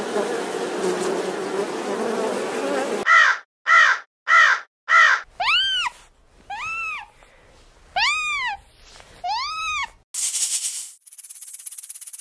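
A run of animal sounds: an insect buzzing for about three seconds, then four short harsh crow caws, then four drawn-out squealing calls that rise and fall in pitch, and a steady hiss near the end.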